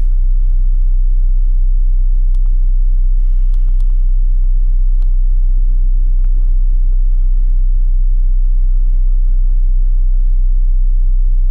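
Steady low rumble of a bus in motion, engine and road noise heard from inside the bus, with a few faint ticks between about two and six seconds in.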